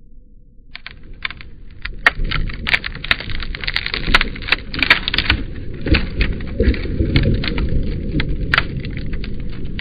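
Dense crackling: many sharp cracks and snaps, starting about a second in and thickening soon after, over a low rumble.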